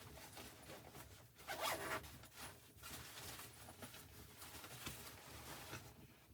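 Faint scratchy rustling of something being handled, in short strokes, loudest for a moment about one and a half seconds in.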